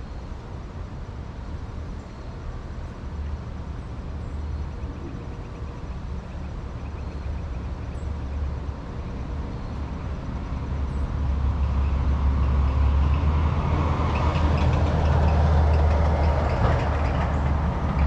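An airplane passing overhead: a low rumble with a wide rushing noise above it, growing steadily louder through the second half.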